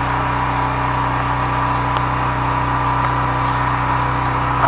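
The 13-horsepower engine of a high-pressure sewer jetter running at a steady speed, a constant low drone with a steady whine above it.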